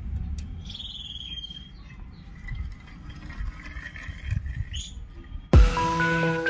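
Outdoor background rumble with a short chirping bird call about a second in. Electronic background music starts abruptly near the end and is the loudest sound.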